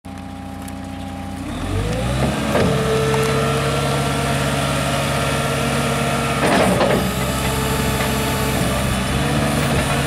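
Turbo diesel engine of a New Holland LX665 skid steer loader, revving up from idle about a second and a half in and then running steadily at high speed while the loader arms lift the bucket. A brief louder, noisier surge comes near two and a half seconds and again around six and a half seconds.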